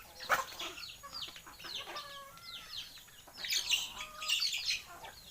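A flock of native chickens calling: many short, high, falling peeps repeated in quick succession, busiest from about three and a half to five seconds in. There is one sharp knock about a third of a second in.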